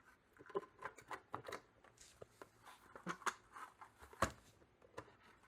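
Faint clicks, taps and rustles of a 3D-printed plastic trackball housing and cover being handled and fitted together, with one sharper knock about four seconds in.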